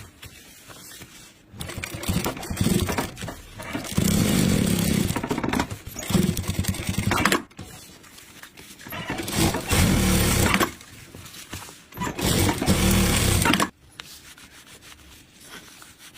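Sewing machine stitching in four separate runs of a few seconds each, starting and stopping between them, as it sews a double-layer pocket.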